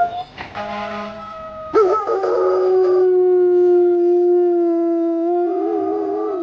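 German Shepherd howling: shorter calls at first, then from about two seconds in one long, steady howl that wavers near the end.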